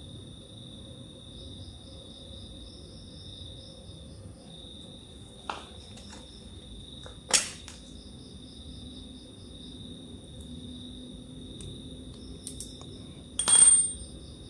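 Crickets chirping steadily in the background. Three sharp clicks come from handling and cutting the motorcycle stator's copper winding wire, the loudest near the end.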